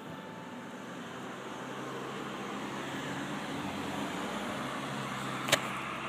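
A car driving up the street, its road noise growing steadily louder as it approaches. A single sharp click about five and a half seconds in.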